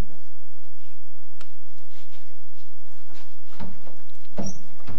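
A few dull knocks and thuds in a small room over a steady low hum: a faint tick, then two thuds about a second apart near the end, and a louder thump as it ends.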